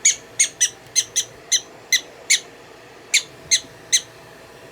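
Prairie dog giving a series of about a dozen short, high chirps, two or three a second, with a brief pause partway through.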